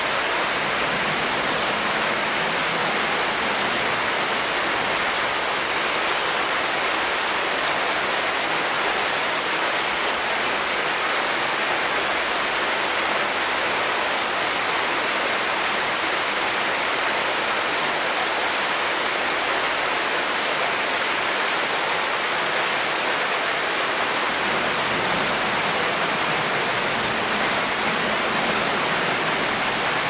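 Creek water rushing and churning over rocks in a shallow rapid: a steady, even rush that holds the same level throughout.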